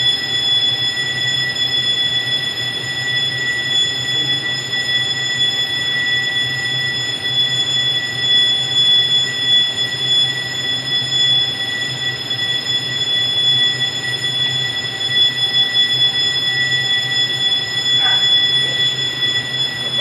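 Fire alarm sounding one steady, unbroken high-pitched tone, set off during testing and cleaning of a ceiling smoke detector.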